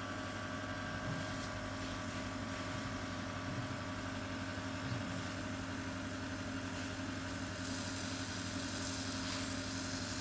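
Steady hum of an oxygen facial machine's compressor, with the hiss of air from its airbrush-style oxygen spray gun misting a water-based product onto the skin. The hiss gets louder about three-quarters of the way through.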